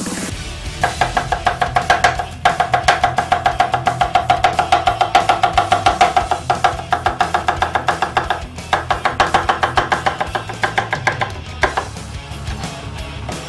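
Cleaver chopping rapidly on a wooden cutting board, mincing green onion: quick, even strokes of about six a second in runs broken by short pauses. Electronic background music plays underneath.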